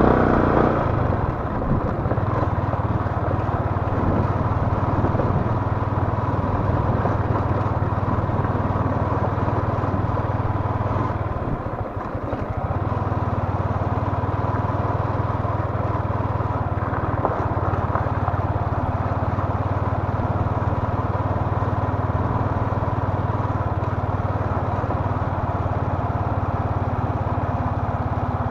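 Small Yamaha motorcycle engine running at low speed along a dirt track, a steady low drone that dips briefly about twelve seconds in.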